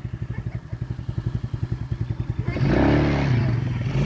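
Small ATV engine idling with a rapid, even putter, then about two and a half seconds in the throttle opens and the engine revs louder, its pitch rising and falling.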